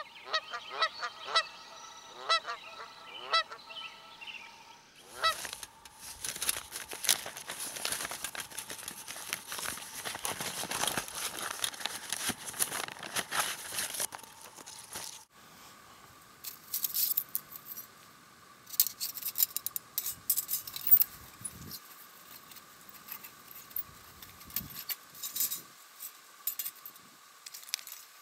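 Geese honking repeatedly for the first few seconds. Then dense rustling and crackling of packaging, followed by light clicks and clinks of the thin titanium plates of an Element 2.2 folding wood stove being unfolded and its grate fitted, over a faint steady high tone.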